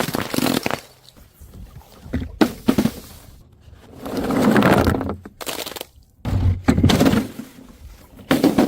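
A series of impacts on hard surfaces: irregular thuds, sharp knocks and short crashing noises, with a longer swell of crunching noise about four to five seconds in.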